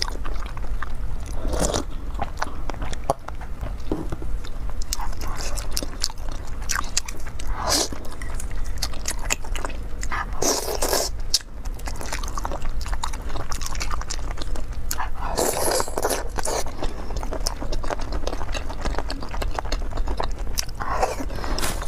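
Close-miked eating: biting and chewing of sauce-coated chicken and noodles, with many short, sharp clicks of teeth and mouth scattered through.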